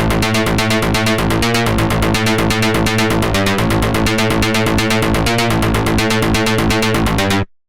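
Electronic music: a rapid, evenly pulsing synthesizer pattern over a steady bass line, which cuts off abruptly near the end.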